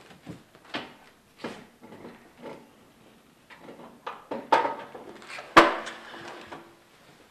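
Irregular knocks and clunks of parts being handled and adjusted on a manual wood lathe, growing louder near the end, with one sharp metallic clack about five and a half seconds in that rings briefly.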